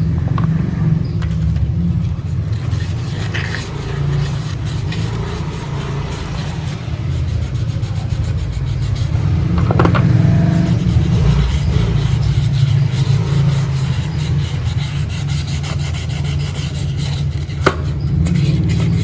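Steady rubbing and scraping as carbon deposits are scrubbed off the dismantled parts of a Yamaha RX-King two-stroke engine, with a sharp knock about ten seconds in and another near the end.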